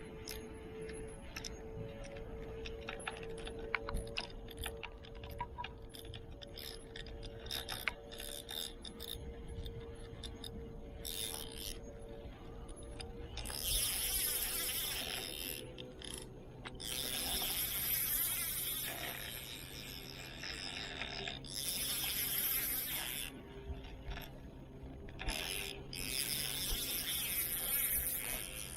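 Fishing reel working against a large hooked fish: scattered clicks for about the first twelve seconds, then four louder bursts of a few seconds each.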